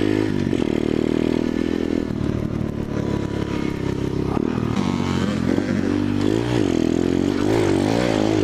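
Small dirt bike engine running while being ridden on a trail, its revs rising and falling several times with the throttle, with some clatter from the bike.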